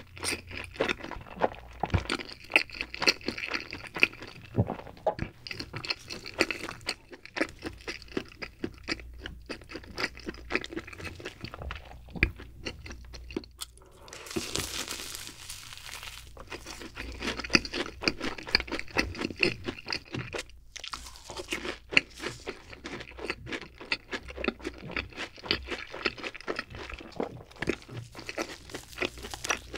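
Close-miked chewing with many short, sharp crunches. About halfway through comes a bite into a crunchy fried cheese ball, a second or two of denser crunching.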